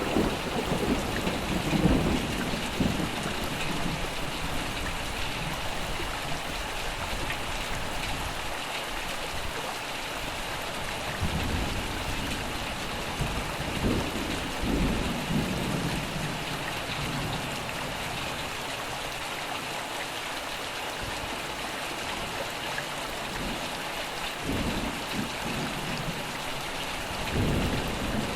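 Steady heavy rain with rolling thunder: low rumbles swell up at the start, again about halfway through and once more near the end, over the constant hiss of the rain.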